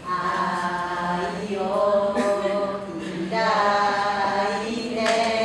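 A woman singing a Japanese song solo and unaccompanied, in three long held phrases.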